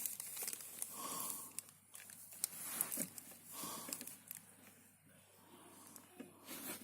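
Faint handling noises: soft rustling with a few light clicks and knocks, fading toward the end.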